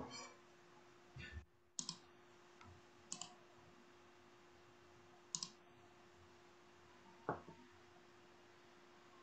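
Near silence: a faint steady hum with a handful of short, scattered clicks and soft knocks.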